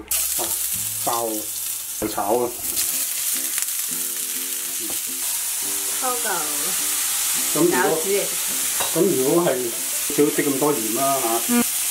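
Chopped garlic sizzling in hot olive oil in a frying pan, starting suddenly as it goes in and frying on steadily. A voice rises and falls over it from about halfway.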